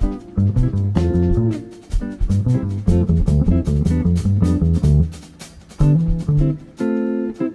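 Jazz trio playing live: plucked double bass, electric guitar and drum kit with steady cymbal strokes. The low bass notes thin out about five seconds in, leaving ringing guitar chords.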